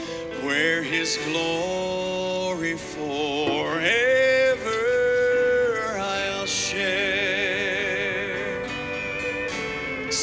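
Background music: a song with a singer holding long notes with vibrato over instrumental accompaniment.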